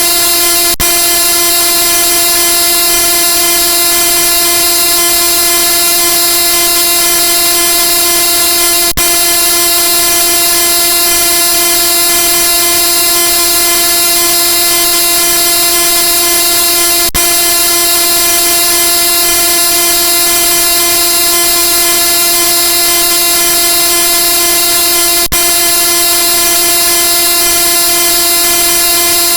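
A loud, steady chorded tone held without change, horn-like, with a faint click about every eight seconds.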